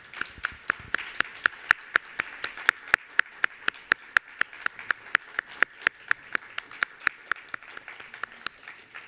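Audience applauding, with one close pair of hands clapping sharply at an even beat of about four to five claps a second over the general applause. It dies down near the end.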